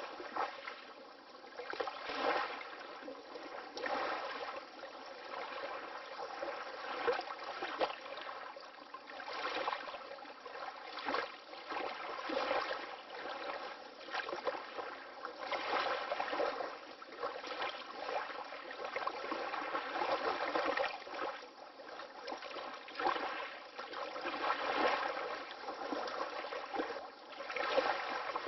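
Water lapping: small waves splashing and sloshing gently, in irregular swells every second or two.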